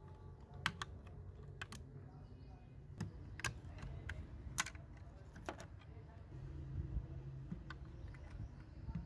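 Sharp, irregular clicks and taps of metal tweezers working at the door hinge of a die-cast model car, with small scrapes as the metal body and plastic parts are handled.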